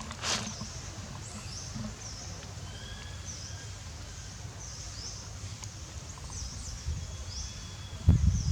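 A high, chirping animal call repeating about once a second over steady outdoor background noise. There is a brief hissing burst just after the start and a loud low thump near the end.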